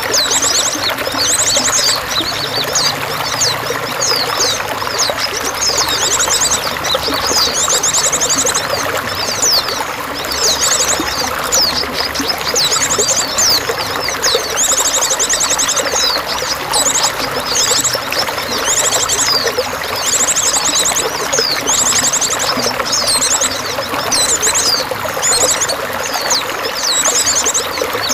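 Steady flowing, trickling water with songbirds singing over it: repeated bursts of rapid high trills and short sweeping notes that come and go.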